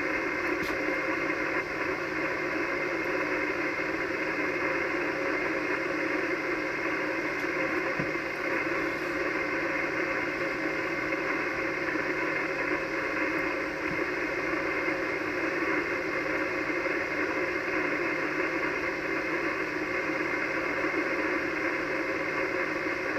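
Icom HF transceiver's speaker putting out steady 80-metre band static, an even hiss with faint steady tones in it: the receiver's noise heard between transmissions while no station is talking on the sideband net.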